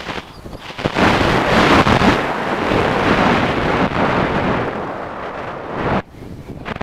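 Wind rushing and buffeting over the microphone of a camera mounted on a flying RC plane, a loud rough rumble that drops away briefly about a second in and again shortly before the end.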